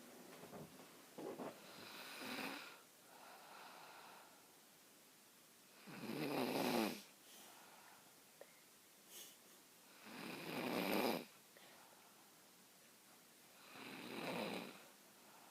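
A sleeping person snoring, with four snores about four seconds apart; the middle two are the loudest.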